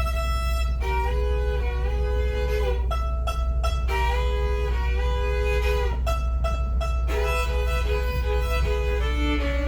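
Fiddle music: a bowed fiddle playing a tune of held notes, often two strings sounding together, over a steady low rumble.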